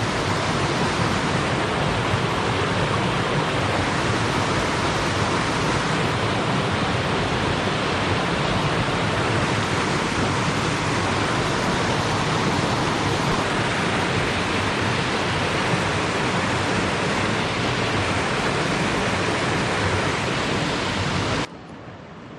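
Mountain stream water rushing over rocks close by: a steady, loud rush that cuts off abruptly about a second before the end, leaving a much quieter background with a few faint knocks.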